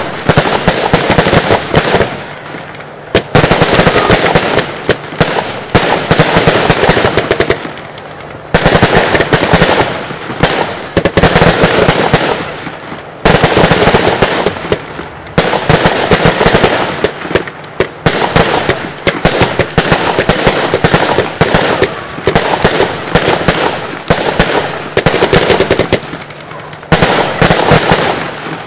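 Lesli Thunderblock 100 firework cake firing in rapid runs: shot after shot launching and bursting in dense volleys of sharp cracks and bangs, several a second, with brief pauses between runs. It stops just before the end.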